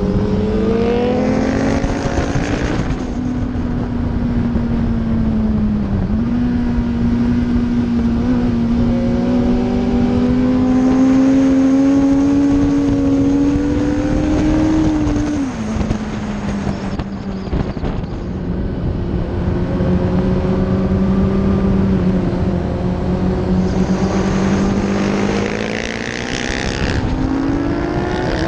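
Suzuki GSX-R1000 K4's inline-four engine under load at track speed, with wind rush over the microphone. Its pitch climbs slowly, dips briefly about six seconds in, climbs again, drops sharply about halfway, holds steady, then rises again near the end.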